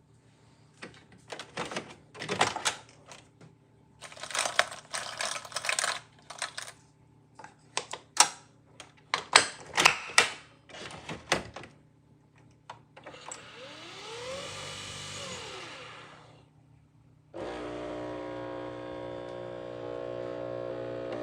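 Nespresso Vertuo coffee machine in use: a string of clicks and clatter for the first dozen seconds, then a motor whir that rises and falls in pitch for about three seconds, and after a short pause a steady humming drone of the machine brewing.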